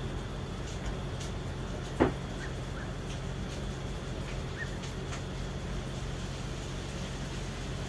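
Steady distant city traffic hum with a low drone. About two seconds in, a short sharp cry falls quickly in pitch, the loudest sound here, followed by a few faint high chirps.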